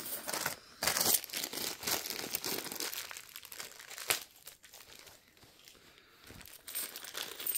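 Plastic coin bag crinkling as it is handled and pulled open, in spells, with a sharp snap about four seconds in.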